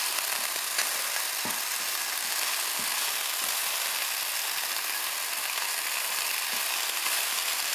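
Bacon sizzling steadily as it fries in a pan, with a few light clicks of the spatulas against the pan as the slices are pried apart.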